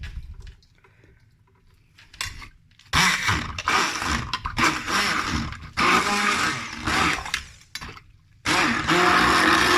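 Electrolux Pamix hand blender running in three pulses, blending fruit into a smoothie. The first two runs last a couple of seconds each with short pauses between, and the third runs on without stopping. The motor's pitch shifts as it works through the fruit, and a few light knocks come before it starts.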